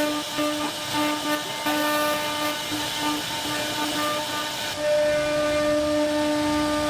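CNC router spindle whining as its bit carves a relief pattern into wood, over a hiss of cutting. The whine breaks off briefly several times, then holds steady and a little louder from about five seconds in.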